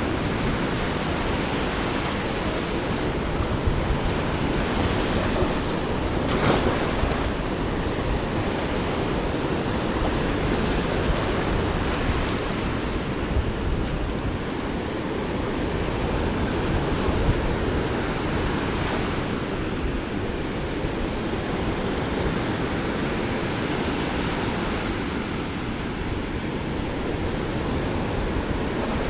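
Small surf breaking and washing up the beach in a steady rush, with wind on the microphone.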